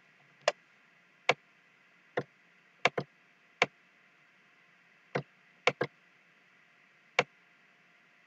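Computer mouse clicking, about ten sharp separate clicks at irregular intervals, some in quick pairs, over a faint steady room hum.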